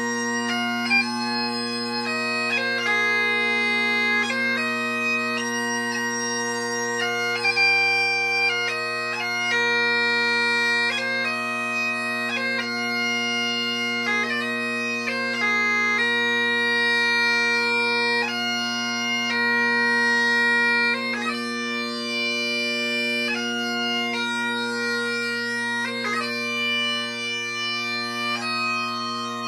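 Great Highland bagpipe playing a slow lament: the drones hold one steady low tone beneath the chanter's melody, which moves from note to note with quick grace-note flicks between them.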